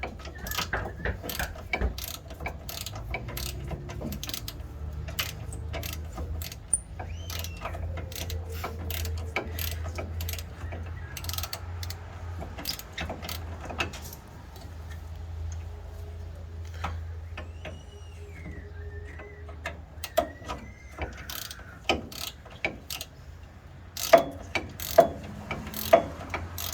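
Socket ratchet wrench clicking in runs as a rusted bumper bolt is turned out by hand, with the loudest clicks near the end.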